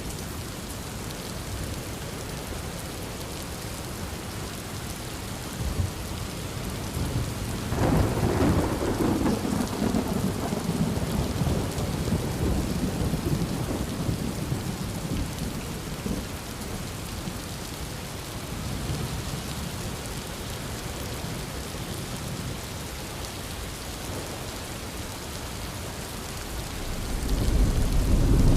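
Thunderstorm: steady heavy rain with a sharp crack of thunder about eight seconds in that rumbles on for several seconds, and another low rumble of thunder building near the end.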